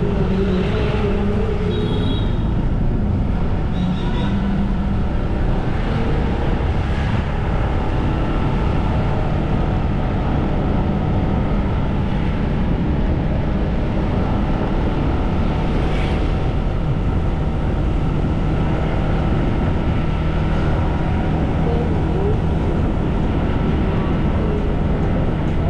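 Steady rumble of wind and road noise from riding along a street on an open vehicle, heaviest in the low range, with wind buffeting the microphone.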